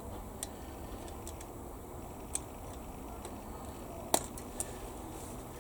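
Small sharp clicks and taps of plastic model-kit parts and hobby tools being handled at the workbench, with one sharper snap about four seconds in.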